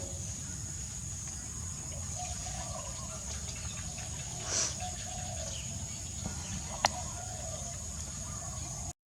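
Faint wavering animal calls over a steady background hiss, with a brief rustle about four and a half seconds in and one sharp click near seven seconds.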